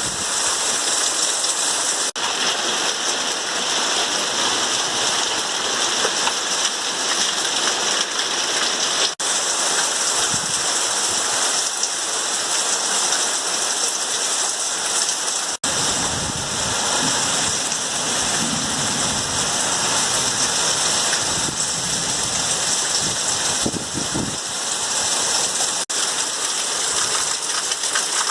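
Heavy rain falling steadily, a dense even hiss, cut off for an instant four times.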